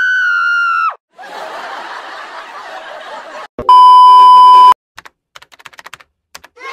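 A string of editing sound effects. A wavering high held note cuts off about a second in, followed by a couple of seconds of TV-static hiss. Then comes a loud, steady test-tone bleep of about a second, played with colour bars, and after it a scatter of sharp clicks like typing.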